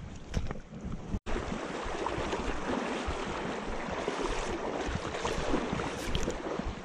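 Creek water rushing steadily, an even noise without pitch. It follows a momentary break in the sound about a second in; before the break there are low bumps on the microphone.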